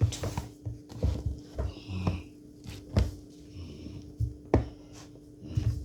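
Irregular knocks, taps and rustles of handling as a small pet is taken out of its container, over a steady faint hum.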